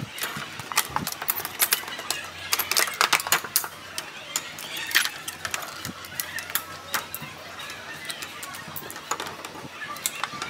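Irregular sharp clicks and crackles of pliers working a metal drum-head hoop, crimping clear mylar film onto it as the film crinkles.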